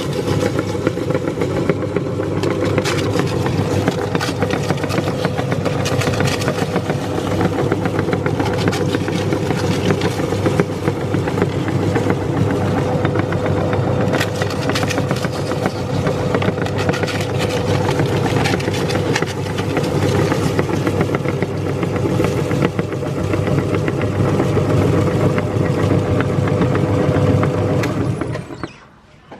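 Electric meat grinder running with a steady motor hum and a constant whine, over dense crackling and crunching as crisp pani puri shells are ground. It shuts off about a second before the end.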